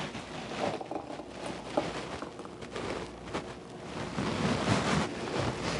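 Thick frozen piña colada slush pouring from a blender jar into a stemmed glass: a faint, uneven wet pouring noise with a few small clicks.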